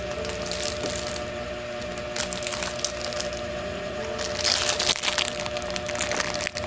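Clear plastic packaging bag crinkling and crackling as it is pulled and torn open by hand and teeth, with the loudest burst of crackling about four and a half seconds in.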